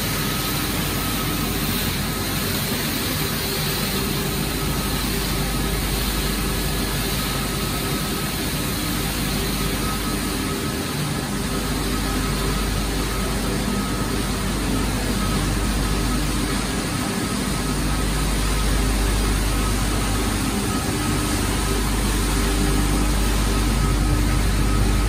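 Pellet production line machinery running: a steady industrial hum of motors and fans over a low rumble, with a few constant tones. It grows slightly louder in the last few seconds.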